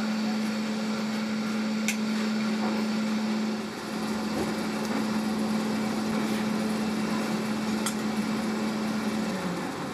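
Electric air blower feeding a pit furnace, running with a steady hum and rush of air. It dips briefly about a third of the way in, and near the end its pitch falls as it winds down.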